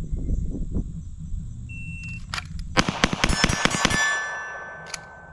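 Shot-timer beep, then a rapid string of pistol shots at steel targets, the steel ringing on each hit. A ringing tone lingers after the last shot.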